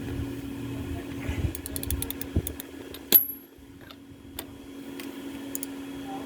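Socket ratchet clicking in short runs of fine ticks as the bearing's fasteners are tightened, with a sharp metal click and a brief ring about three seconds in. A steady low hum runs underneath.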